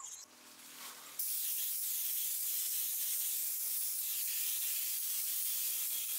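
Compressed-air spray gun with a top-mounted gravity-feed cup spraying paint onto a hanging steel chain link: a steady hiss that starts abruptly about a second in.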